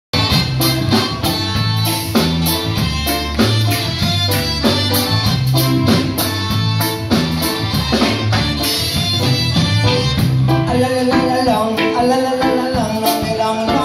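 Small live band with drum kit and guitars playing an upbeat song, the drums keeping a steady beat over a strong bass line; a melody line stands out more clearly over the last few seconds.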